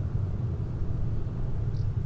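Low, steady rumble of distant jet engines, with one faint short high chirp near the end.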